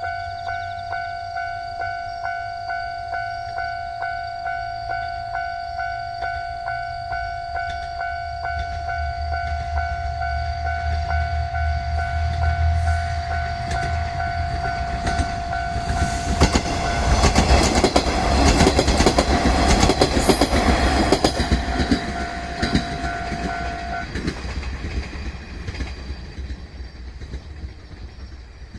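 Japanese level-crossing warning bell ringing in a steady electronic ding-ding while a 1500-type diesel railcar approaches with a growing engine rumble. The train passes about 16 to 22 seconds in with loud wheel clatter over the rail joints. The bell stops about 24 seconds in and the train fades away.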